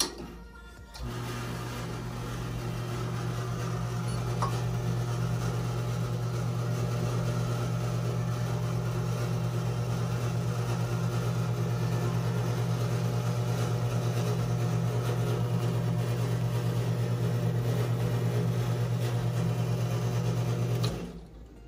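La Marzocco Linea Mini espresso machine's rotary pump running through a shot extraction: a click of the brew paddle, then a steady hum that starts about a second in, grows a little louder over the first few seconds, and cuts off suddenly just before the end.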